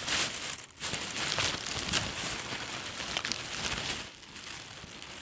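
Rustling and crinkling with many small clicks as things are rummaged through by hand, turning fainter about four seconds in.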